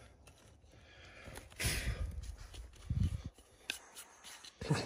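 Soft handling and scraping of dry, gravelly soil as a buried object is worked loose by hand. There is a breathy exhale about a second and a half in, a short low sound around three seconds, and a few faint clicks.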